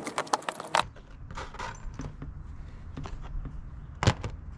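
Small metal tools and hardware clinking and jingling in the first second, as the transom bracket is being unbolted. Then quieter handling, with one sharp knock about four seconds in.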